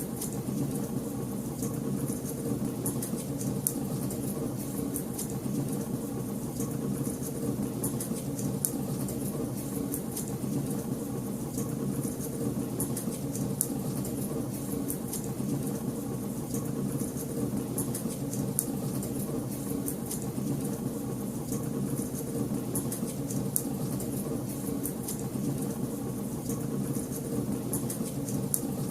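Wood fire burning in a fireplace: frequent small, sharp crackles and pops scattered irregularly over a steady low rumble of the flames.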